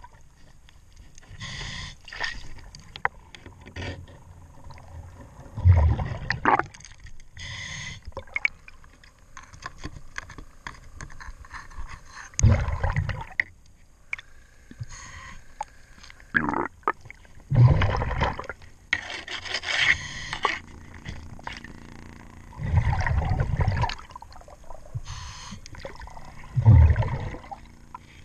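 Scuba diver breathing through a regulator underwater: the bubbles of each exhale rumble out about every five seconds, with the hiss of an inhale between them. Short scrapes and clicks of a hand scraper working the boat's hull come in between breaths.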